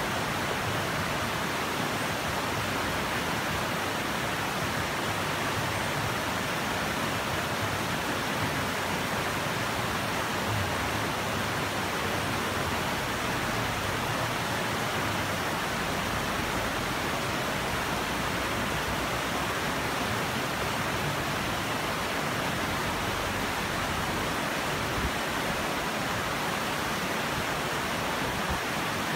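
Shallow, rocky river rushing over stones in rapids, a steady, unbroken rush of water.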